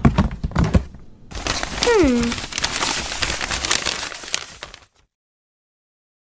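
Paper crumpling and rustling as a crumpled paper ball is pulled out of a plastic bin, after a few low knocks. A short falling voice sound comes about two seconds in, and everything cuts off to silence about five seconds in.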